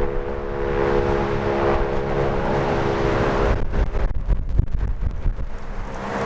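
Federal Signal STH-10 two-tone rotating warning siren sounding its attack signal, a steady chord that fades out about halfway through as the rotating horn turns away and swells back in just at the end. Wind rumbles on the microphone throughout.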